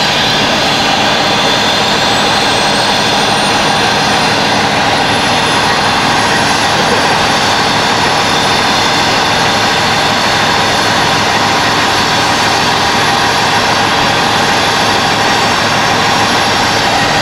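Natural gas escaping under pressure from a ruptured gas main: a loud, steady hiss with a high whistle that rises over the first several seconds and then holds.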